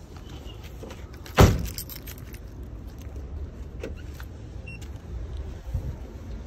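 A car door slams shut about a second and a half in, followed by keys jangling and faint clicks, with a short high beep near the middle.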